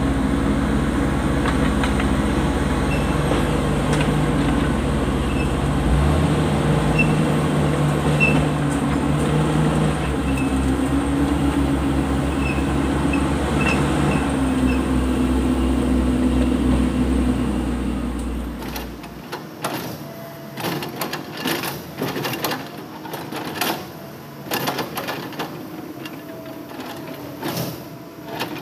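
Crawler bulldozer's diesel engine running steadily under load, its pitch shifting a couple of times. About two-thirds of the way through the engine drone gives way to irregular knocks and clatter as a Hitachi Zaxis 200 excavator's bucket works broken rock.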